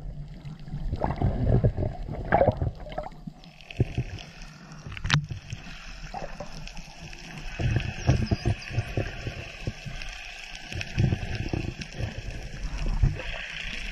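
Water sound heard underwater while Indo-Pacific bottlenose dolphins swim near the surface: irregular low rumbling and sloshing with scattered clicks, and one sharp click about five seconds in.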